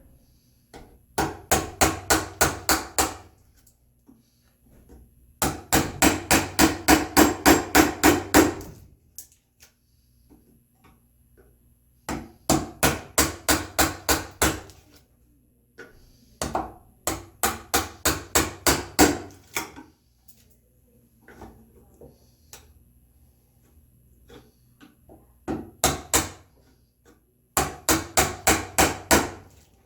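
Mallet striking a chisel chopping a mortise into red oak: runs of rapid, evenly spaced blows, about four or five a second, in six bursts with short pauses between.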